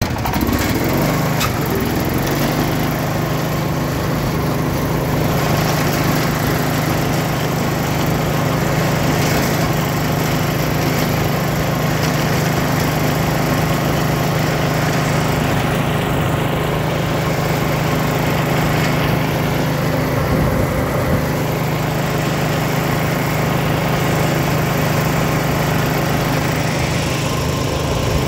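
Murray riding lawn mower's engine running steadily at speed as the mower drives along pavement at about 13 mph.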